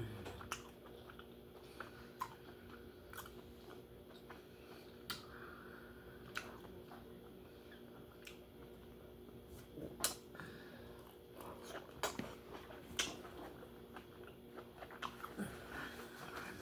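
A person chewing and biting seafood close to the microphone, with scattered small mouth clicks and smacks. A faint steady hum lies underneath.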